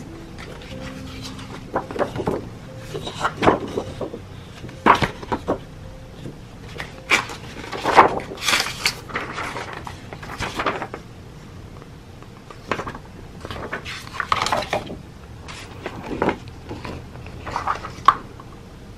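Sheets of patterned paper being lifted out of a cardboard box and handled: irregular rustles and crinkles with light knocks, busiest about halfway through.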